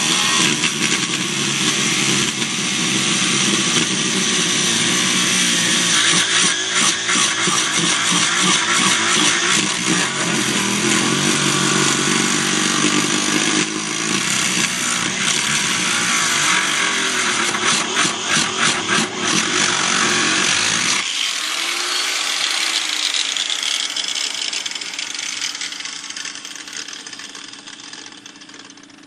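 Small electric grinder cutting into a minivan's sheet-metal floor to lengthen the seat bolt holes, a steady loud grinding with stretches of rough chattering. About 21 seconds in the cutting lets up, and the sound fades toward the end.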